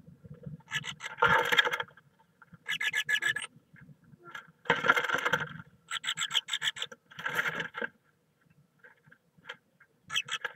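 Great tit scratching and rustling in its moss nest inside a wooden nest box, in five bursts of about a second each, each a quick run of scratchy strokes.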